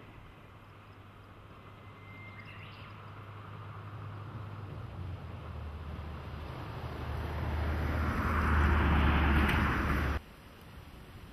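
JNR DE10 diesel locomotive approaching, its low engine drone and running noise growing steadily louder, then cut off suddenly about ten seconds in. A short bird chirp about two seconds in.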